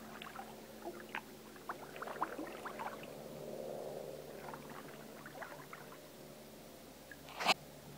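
Canoe on a river: faint water trickling and dripping with scattered small taps, and one sharp knock near the end.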